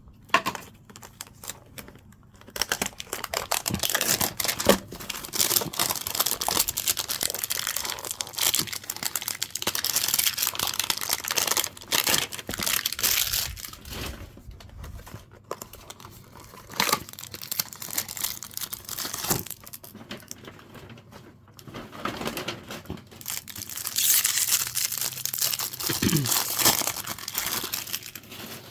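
Packaging of a Topps baseball card Mega Hanger Pack being torn open and crinkled by hand, in busy spells of rustling and tearing broken by short pauses.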